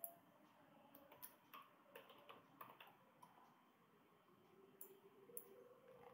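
Faint computer keyboard keys typing a short word, a cluster of quick clicks in the first half, then a few separate clicks of a computer mouse near the end.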